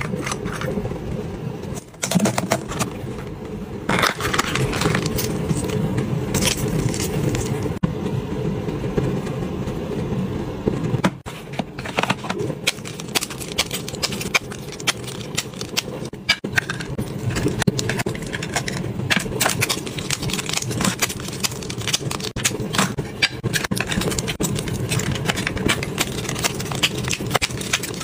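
Hands handling plastic and foil packaging: a cosmetic jar, then stacks of contact lens blister packs clicking, tapping and crinkling against each other in quick irregular bursts, over a steady low hum.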